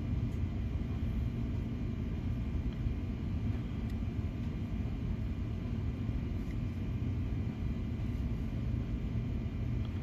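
Steady low background rumble with a faint hum and no speech, and a faint click about four seconds in.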